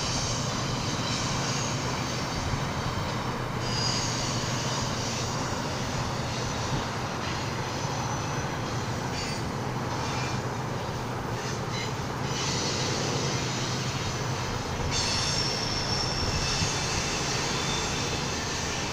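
Double-stack container freight train rolling past: a steady rumble and clatter of steel wheels on the rails, with a high-pitched wheel squeal on the curve coming and going several times.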